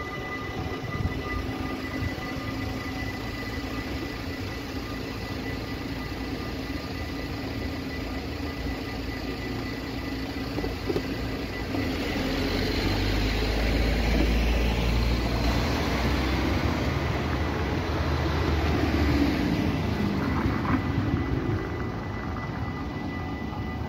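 A Stadler FLIRT electric train passing over the level crossing. Its running noise, a low rumble with rail noise, builds about halfway through and fades a few seconds before the end, with road traffic passing close by.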